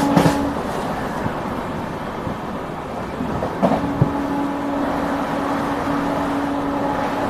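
Express train running: a steady rumbling ride noise with a low steady hum that drops out just after the start and comes back about three and a half seconds in, and a few short knocks.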